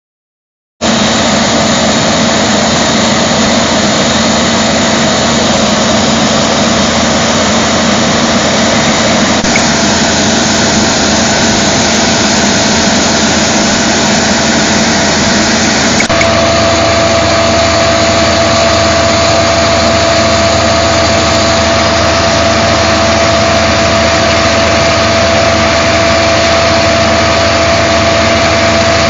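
Truck-mounted coffee-cleaning machine running steadily while cleaning harvested coffee, a loud continuous mechanical drone with a steady whine that grows stronger about halfway through.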